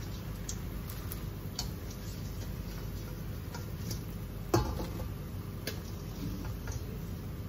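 Hot frying oil in a stainless steel wok crackling with scattered small pops as battered shrimp are lifted out with a slotted spatula. About halfway through comes a single sharp knock of the spatula, with a short metallic ring.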